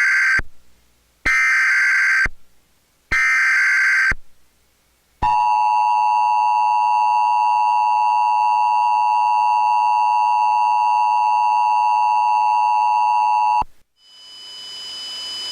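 Emergency Alert System tones for a mock tornado warning: three short data bursts of the SAME header, about a second apart, then the steady two-tone EAS attention signal held for about eight seconds before cutting off sharply. Near the end a hiss of static swells up with faint steady tones in it.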